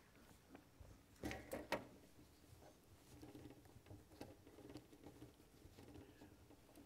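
Faint room tone with soft rustling and a few light knocks and clicks, the loudest two close together about a second and a half in: someone moving about and handling things at a lectern.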